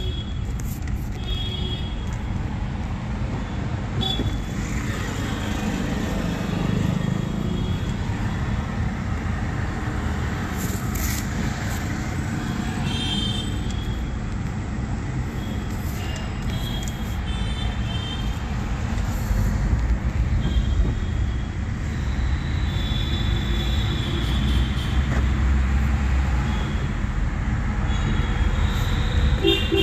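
Vehicle and traffic noise heard from inside a car on a main road: a steady low rumble that swells for several seconds about two-thirds of the way in, with faint short higher-pitched rattles or squeaks on top.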